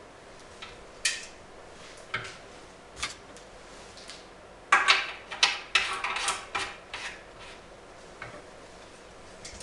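Metal clicks and clanks from hands working on a vintage outboard motor's top end: a few single knocks, then a quick run of loud rattling clatter about five seconds in.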